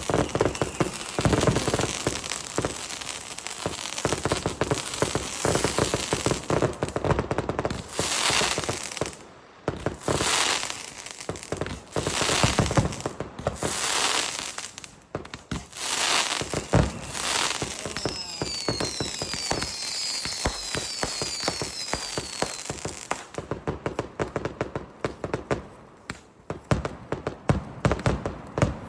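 Fireworks display: dense crackling and popping with repeated whooshing swells. Midway there is a quick run of short falling whistles.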